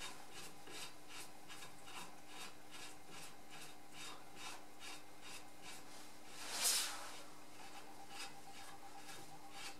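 Steel bolt being spun down by hand through a puller plate on a cast-iron tractor front-axle housing, a faint metal rubbing with light ticks about four a second over a steady low hum. One louder scrape comes about two thirds of the way through.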